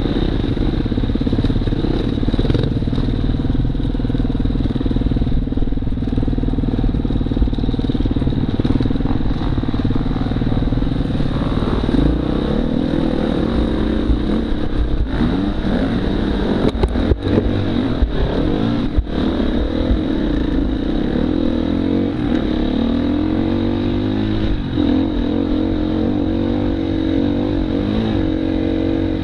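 Husqvarna FE250 enduro motorcycle's single-cylinder four-stroke engine running under way, fairly steady at first and then rising and falling in pitch from about twelve seconds in as the throttle is opened and closed. A few sharp knocks come through around the middle.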